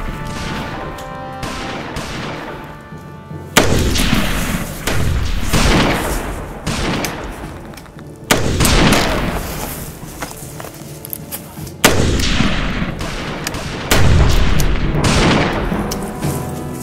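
A string of gunshots in a shootout, spaced one to four seconds apart, each followed by a long echoing tail, with background music underneath.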